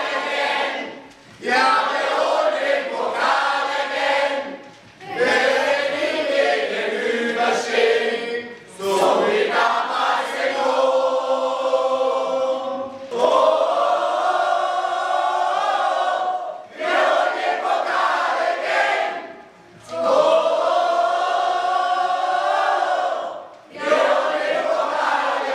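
A choir of many voices singing together in phrases of about three to four seconds, each separated by a short pause.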